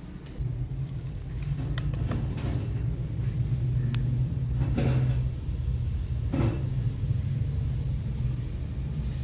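A low, steady rumble, with a few faint clicks and rustles over it.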